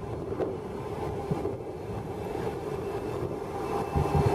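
Locomotives of an empty coal train approaching along the line, with a steady engine drone over a low rumble that grows louder, swelling near the end as they draw level.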